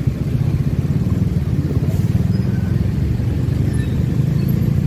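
Motorcycle engine running in slow, jammed traffic, heard as a steady low rumble through a chest-mounted phone's built-in microphone.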